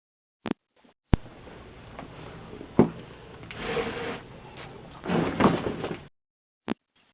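A few sharp knocks with rustling and scraping noises between them, heard through a doorbell camera's microphone.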